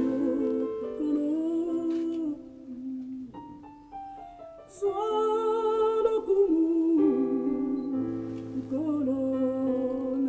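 A slow gospel song: a singer holding long, wavering notes over sustained chords on an electronic keyboard. The music thins out and drops in level around three to four seconds in, then swells back.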